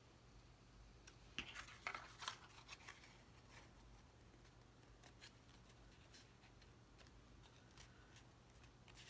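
Faint rustling and light clicks of cardstock pieces being handled and pressed into place, with a cluster of them between one and three seconds in, then only scattered soft ticks.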